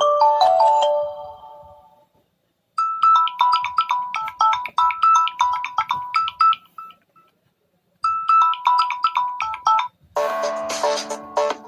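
Samsung Galaxy Tab A8 ringtones. One ringtone's descending notes fade out. Then a melody of short chiming notes plays, stops for about a second, and starts again. Near the end a fuller ringtone with lower notes begins.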